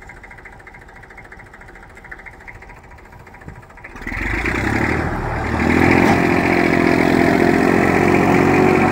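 Massey Ferguson tractor engine running at a low, steady speed, then opened up about four seconds in and running hard and loud under load as it pulls a heavily loaded sugarcane trailer.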